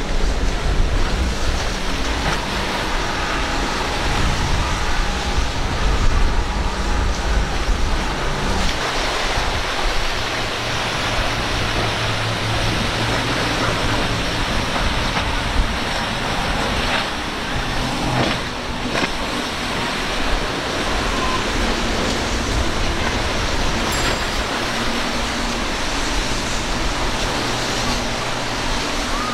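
Multi-outboard powerboats running at speed, a steady engine hum under the rushing noise of hull spray and waves. The sound changes abruptly about eight seconds in, as a different boat takes over.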